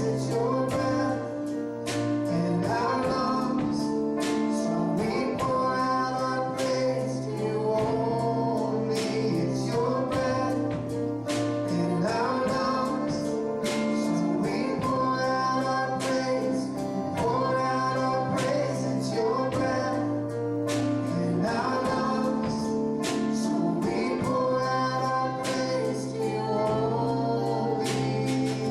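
Worship song: singers over an instrumental backing with a steady beat.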